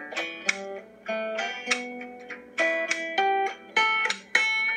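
Banjo being plucked, a tune of single ringing notes mixed with short chords, a few notes a second.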